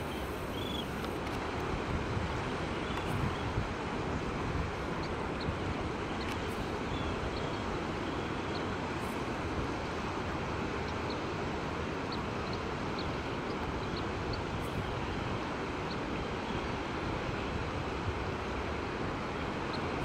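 Steady wind and surf noise on an open beach, with faint, short, high chirps from a flock of shorebirds scattered through, most of them in the middle of the stretch.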